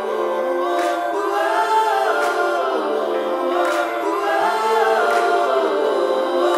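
Background music: a choir of layered voices singing held, gliding notes without clear words, with a soft beat about every second and a half.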